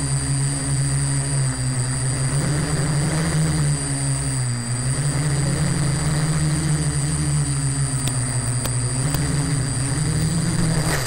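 A small electric quadcopter's motors and propellers whirring steadily in flight, the pitch rising and falling with throttle and dipping briefly about four and a half seconds in, with a steady high whine over it. The motor sound winds down at the very end as the quad comes down.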